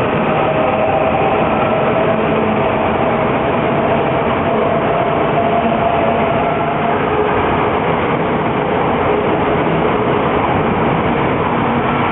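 Shinkansen bullet train passing at speed close by: a steady, loud rushing noise with a faint whine that fades out about seven seconds in.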